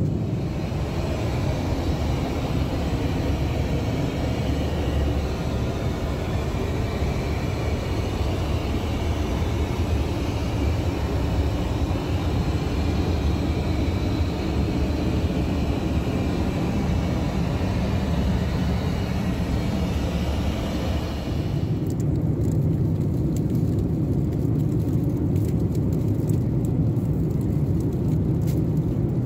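Steady cabin noise of a Boeing 747 airliner in cruise: a low rumble of engines and airflow with a hiss over it. About 22 seconds in the hiss drops away suddenly, leaving the low rumble.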